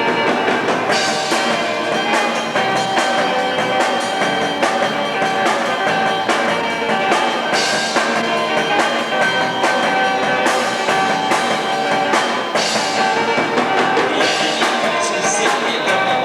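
Live rock band playing: drum kit, electric guitars and bass, with some singing.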